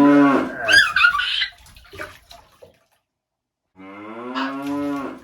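A fake snore: two long, low, drawn-out vocal sounds on a steady pitch, the first lasting about a second and a half at the start and the second swelling up near the end.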